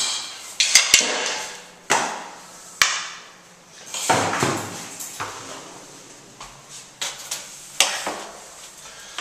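A series of irregular sharp knocks and thuds, each dying away with an echo off hard tiled walls.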